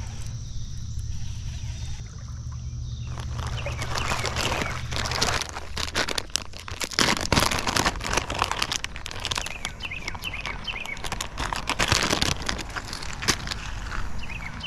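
Close rustling and clicking that starts about three seconds in and keeps going, over birds chirping in short falling notes. A low steady rumble underneath stops about five seconds in.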